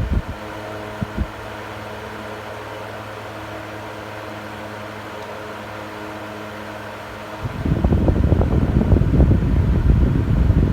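Electric fan running: a steady motor hum with a couple of faint clicks about a second in. About seven and a half seconds in, the fan's airflow starts buffeting the microphone with a loud low rumble.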